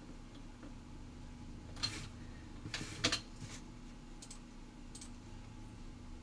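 Scattered clicks of a computer keyboard and mouse. There are a couple about two seconds in, a quick cluster around three seconds, then single clicks near four and five seconds, over a faint steady hum.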